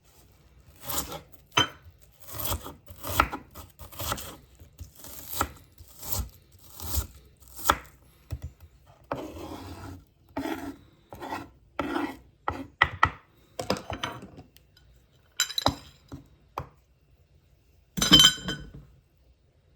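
Hand food preparation in a kitchen: a run of short, irregular cutting and scraping strokes on vegetables, pausing twice, with a louder clatter of a utensil near the end.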